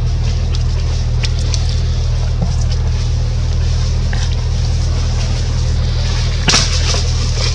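A motor running steadily, a low even drone, with a few faint ticks and a brief sharp crackle about six and a half seconds in.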